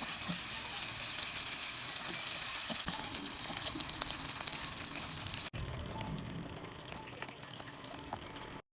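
Chicken frying in hot oil: a steady sizzle full of small crackles, with a brief break about five and a half seconds in. It is a little quieter after the break and cuts off suddenly near the end.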